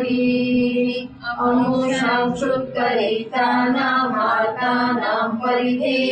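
A woman chanting Sanskrit verses in a steady, held sung tone, with short breaks for breath about a second in and again about three seconds in.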